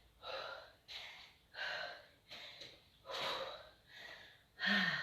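A person panting hard after a set of burpees: about seven heavy, gasping breaths, roughly one and a half a second. The last breath carries a voiced, falling sigh.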